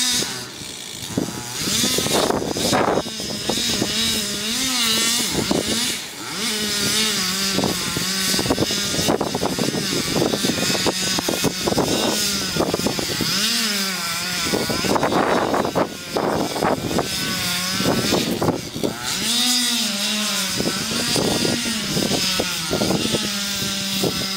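Chainsaw engine running, revved up and back down again and again, with short rough surges as the saw works.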